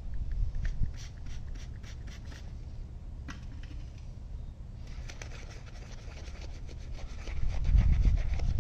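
Wooden-handled brush scrubbing a foam-covered steel wheel: scattered scratchy clicks at first, then quick rubbing strokes from about halfway through. Under it runs a low rumble that grows much louder near the end.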